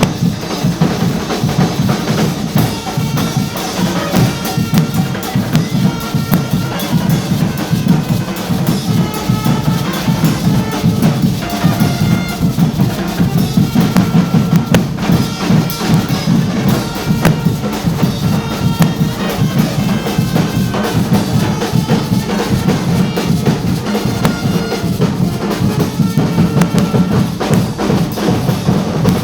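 Carnival band music: dense, continuous drumming with bass drum and snare-like beats, and a melody line above it.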